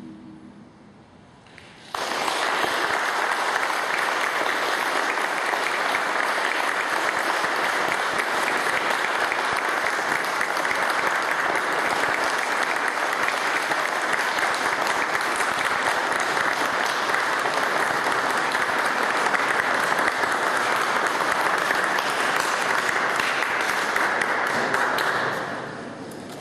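Audience applauding. It breaks out suddenly about two seconds in after a brief hush, holds steady, then dies away near the end.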